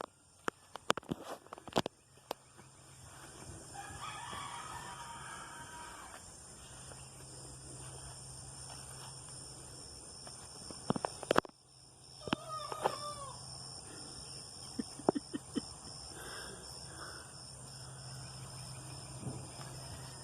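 Young rooster attempting to crow: an unfinished, immature crow about four seconds in, then a shorter, broken call about twelve seconds in. Steady insect chirring and a few knocks sit underneath.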